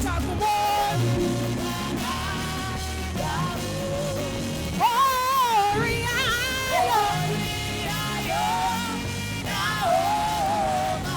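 Live worship music: a band playing steady low chords under a lead singer's held, wavering notes, which swell loudest about five seconds in.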